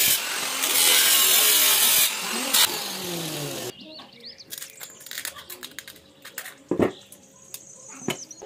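Angle grinder with a thin cutting disc slicing through a thin-walled metal spray-paint can, a loud steady grinding whine whose pitch shifts, cutting off about three and a half seconds in. Then tin snips cutting the can's sheet metal: scattered snips and clicks, with two sharp clacks near the end.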